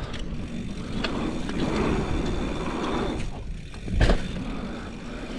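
Mountain bike rolling fast over dirt, with tyre and wind rush swelling over the first three seconds and one loud thump about four seconds in.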